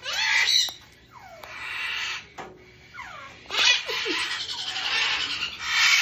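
Scarlet macaw vocalizing: a run of short calls that fall in pitch, then a longer, harsher call of about two seconds in the second half.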